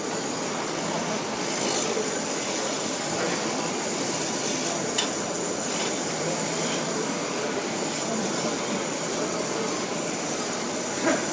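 Wood lathe turning a wooden chisel-handle blank while a turning tool cuts it, giving a steady rough rushing noise. A sharp click comes about five seconds in and another near the end.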